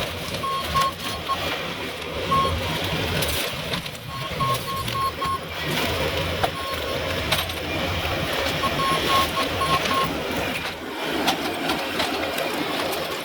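Steady clattering, mechanical-sounding noise with many small clicks, broken by short runs of quick, high-pitched electronic beeps at one pitch, heard four or five times.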